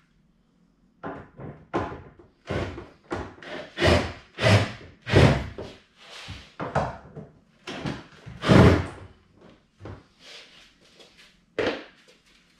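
Irregular knocks and thumps against the panels of an IKEA PLATSA wardrobe as a HJÄLPA clothes rail is fitted inside it. The loudest come around the middle and again about two-thirds through.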